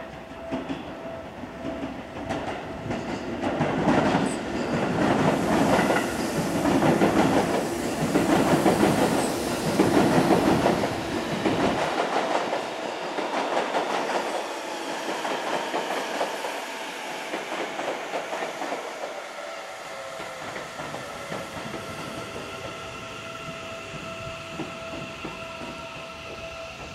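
Seibu 30000 series electric train running into the station: the wheels clatter loudly over the rail joints as it passes, then the noise eases off as it brakes, with a falling whine near the end as it slows to a stop.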